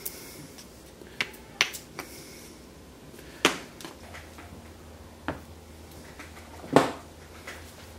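Glued plywood blocks and a steel square-tube weight being set down on a bench top: about six separate sharp knocks, the loudest one near the end.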